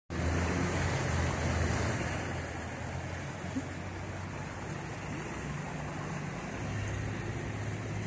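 Muddy floodwater rushing down a street: a steady rush of water with a low rumble that swells near the start and again near the end.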